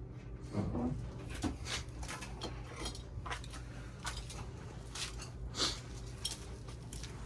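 Scattered clinks, taps and knocks of small hard objects being handled, over a steady low hum.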